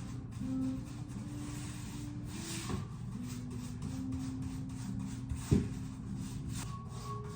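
Paintbrush strokes rubbing paint onto a wall, a run of short scratchy strokes, with a sharp knock about five and a half seconds in, over soft background music.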